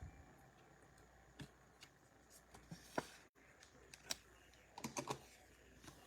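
Faint, scattered clicks and taps of trading cards and packs being handled, a few light knocks a second apart with a small cluster about five seconds in.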